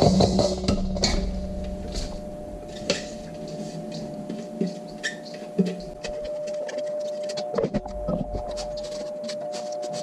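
Small kitchen food processor chopping vegetables, its motor cutting off about a second in, followed by scattered clicks and knocks of the plastic bowl and lid being handled.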